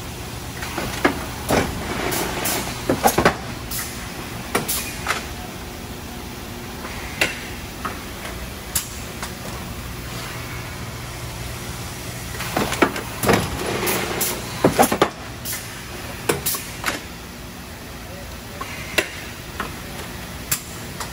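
Industrial thermoforming machine running, with a steady low hum and irregular clusters of mechanical clanks and hissing. The busiest clusters come about two to three seconds in and again past the middle.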